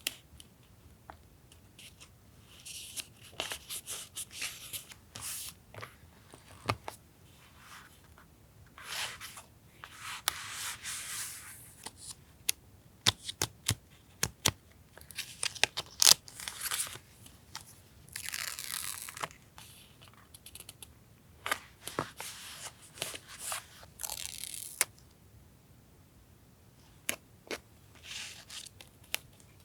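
Paper being torn and rustled in repeated short bursts, with scattered small clicks and taps of paper and tools.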